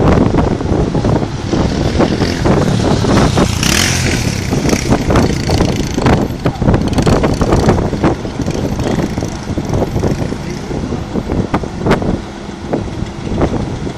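Wind buffeting the microphone over a low rumble, with irregular knocks throughout and a brief hiss about four seconds in.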